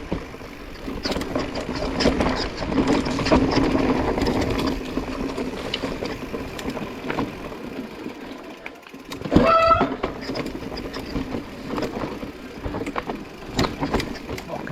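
Mountain bike ridden along a dirt trail: tyre noise with the chain and frame rattling over bumps, swelling and easing with speed. A brief high squeal about nine and a half seconds in.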